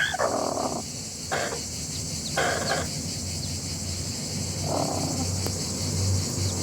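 Chickens giving four short calls, spaced a second or two apart, over a steady low hum and hiss.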